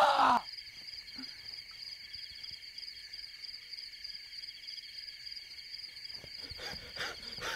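A loud yell cuts off about half a second in, and a steady chorus of night insects trilling carries on, several fine pulsing high trills at once.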